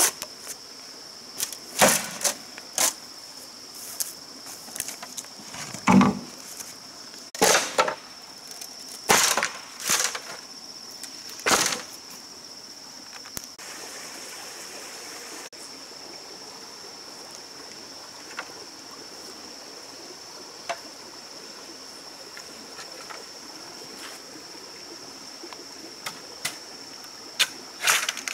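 Hollow knocks and clatter of green bamboo poles being lifted, swung and set down, about eight sharp knocks in the first twelve seconds and a few lighter clicks near the end. A steady high insect buzz runs underneath.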